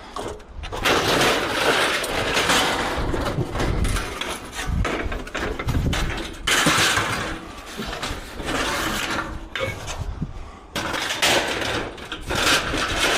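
Sheet metal from a dismantled tin shed being handled and loaded as scrap: uneven scraping, rattling and clanking in long spells, with short lulls between them.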